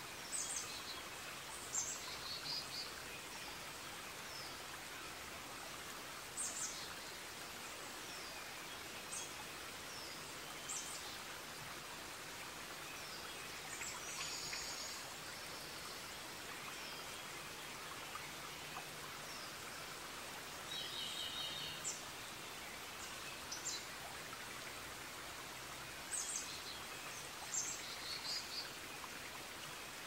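Forest ambience: a steady hiss with birds chirping every few seconds, short high calls and a couple of longer trills around the middle.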